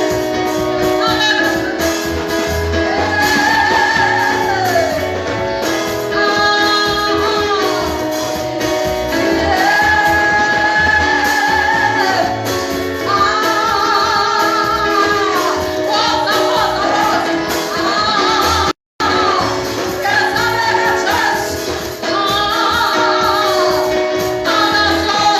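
Gospel worship music with a singer's held melody over sustained keyboard chords, at a steady level; the sound cuts out for an instant about three quarters of the way through.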